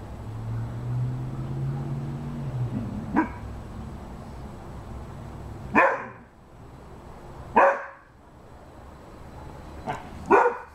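Rhodesian Ridgeback barking: a low drawn-out sound over the first few seconds, then single barks, three of them loud and about two seconds apart in the second half, with softer ones in between.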